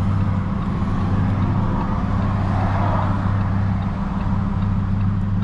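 Lamborghini engine idling steadily at one unchanging pitch, heard from inside the cabin.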